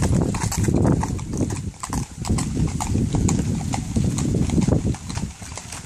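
Hooves of several Fjord horses clip-clopping on the road at a walk, in a steady run of irregular strikes, with a horse-drawn cart rolling past.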